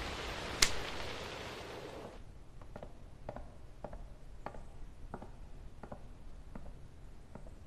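A steady hiss with one sharp click about half a second in. Then, from a couple of seconds in, a man's slow, even footsteps, about one step every 0.6 s, that stop near the end.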